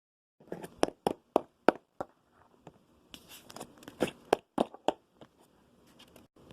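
Plastic toy horse figurines handled on a hard surface: a run of about a dozen sharp, irregular taps and clicks that thin out after about five seconds.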